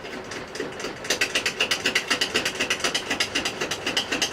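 Rapid, even mechanical clicking, about ten sharp clicks a second, starting about a second in, like a detented mechanism being worked.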